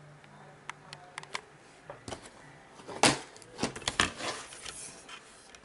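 Plastic DVD case and disc being handled: a run of small plastic clicks and taps, with a louder clatter about three seconds in and a few more knocks just after.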